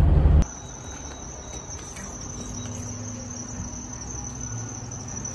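Loud in-car road and engine noise cuts off about half a second in, giving way to the quieter steady sound of a gas pump filling a car: a thin high-pitched whine over a faint low hum.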